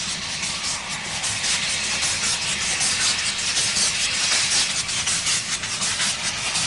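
Narrow-gauge steam locomotive No. 1, The Earl, a Beyer Peacock 0-6-0 tank engine, puffing as it pulls away: a rapid, regular beat of exhaust chuffs over a steady hiss of steam, growing a little louder about a second in.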